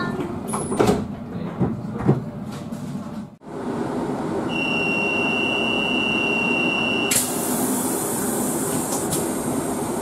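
Sliding doors of an NS SLT train thudding shut a few times as its folding step retracts. Then the departure whistle of an NS ICMm train: one steady high tone, held about two and a half seconds. A sudden loud hiss of air follows as the pneumatic doors start to close.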